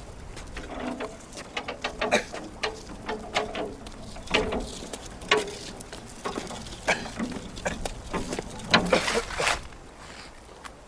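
A wheelbarrow rolling and rattling over a wooden plank walkway, with footsteps: a run of irregular knocks and clatters, and a louder scraping clatter near the end.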